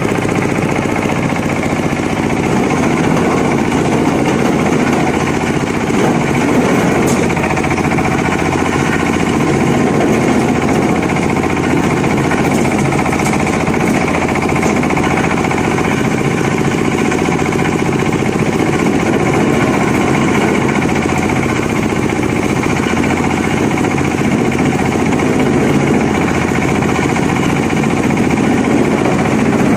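Wood grinding machine running steadily: a loud, continuous mechanical sound with a low hum and a few faint high clicks now and then.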